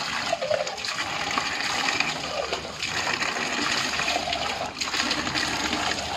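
Steady rush of water pouring from an open pipe and splashing over a rooster held under the stream and onto the concrete floor.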